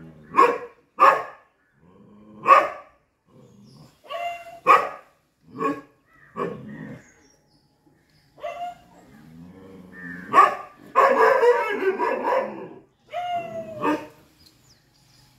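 Chippiparai dog barking in short, sharp single barks at irregular intervals, with a longer, harsher run of barking about eleven seconds in. Alarm barking at monkeys in the trees.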